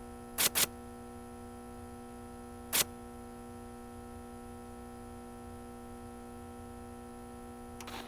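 Three sharp clicks, two in quick succession about half a second in and one more a couple of seconds later, over a steady background hum of even tones.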